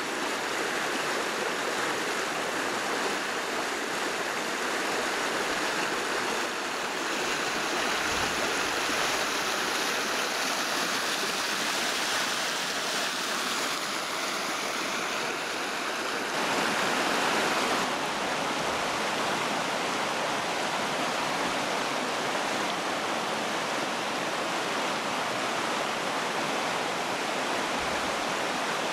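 Fast-flowing stream rushing over rocks and through rapids: a steady, full water rush, briefly louder a little past the middle.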